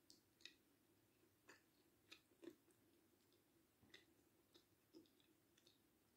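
Faint eating sounds: a metal spoon clicking now and then against a ceramic bowl of mung bean soup, with soft chewing between the clicks.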